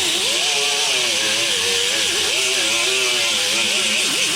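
Power grinder stripping paint from a steel fender patch down to bare metal, running steadily with its whine rising and falling as it is pressed against the metal.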